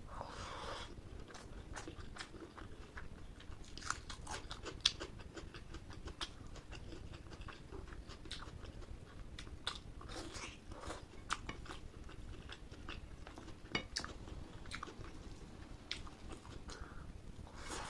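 Close-miked eating: wet chewing and smacking of curry and rice, with sharp mouth clicks scattered throughout.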